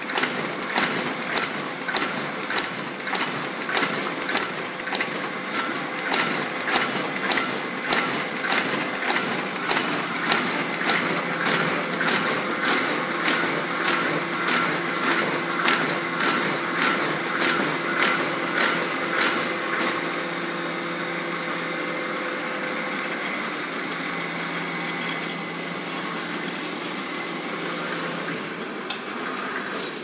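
Stahl T50 buckle-plate and knife-fold paper folding machine running, with a fast, even clicking of about two to three a second as sheets are fed and folded. About twenty seconds in the clicking stops and the machine keeps running with a steady mechanical hum.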